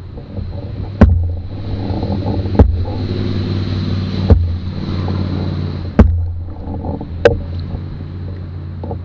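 Passing motorboat's engine droning steadily, with a hiss of water wash through the middle. Five sharp knocks on the canoe hull, about one every second and a half, as the canoe rides into the boat's wake.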